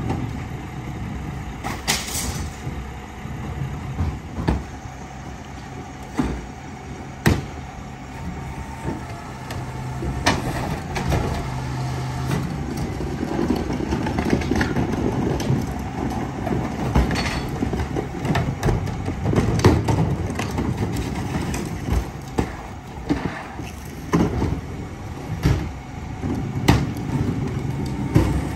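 Mack TE rear-loader garbage truck's engine running steadily, with many short sharp knocks and clanks over it.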